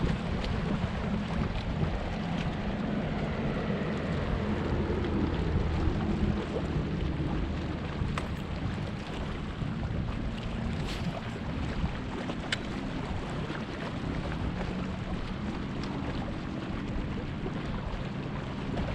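Wind buffeting the microphone over water lapping around a fishing kayak, with a few sharp clicks in the second half.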